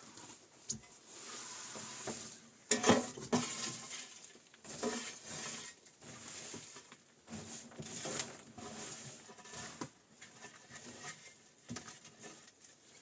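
Irregular rustling, scraping and clattering of things being handled, with a sharp knock about three seconds in.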